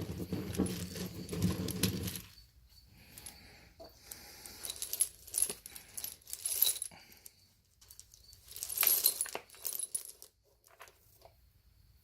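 Steel nuts and bolts clinking and clattering in several bursts as handfuls are dropped into a tumbler bowl, with sharp metallic ringing. A low steady hum stops about two seconds in.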